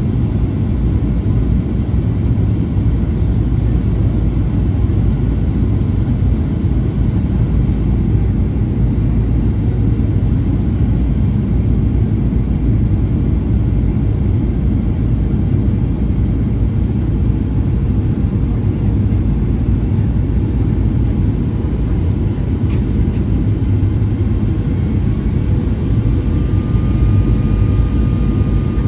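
Steady low rumble of engine and airflow noise inside the cabin of a Boeing 737-800 airliner in flight, heard from a first-class window seat.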